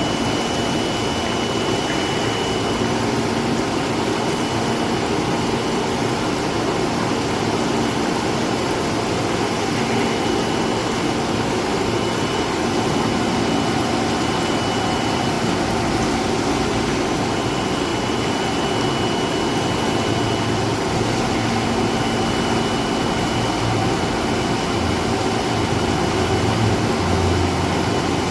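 MAXIA MX-LI500 vortex-type industrial vegetable washer running steadily while washing green beans: an even machine noise with a constant low hum and a faint high whine.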